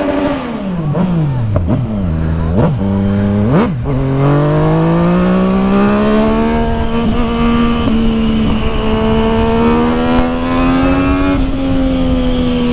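Yamaha MT-09 three-cylinder engine under way: a few quick rises and falls in revs, then a long climb in pitch about four seconds in, settling into a steady high-revving run with small changes, over wind rush on the microphone.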